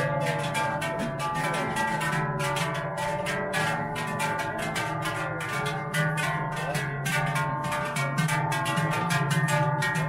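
Large Appenzell herdsmen's cowbells (Schellen) clanging and ringing together in a rapid, even rhythm as the herdsmen shake and swing them.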